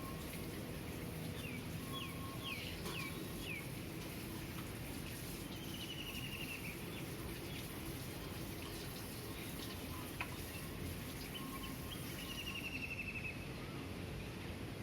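Birds calling over a steady low city hum: a handful of quick falling chirps a couple of seconds in, then two fast trills of rapidly repeated notes, about halfway through and again near the end.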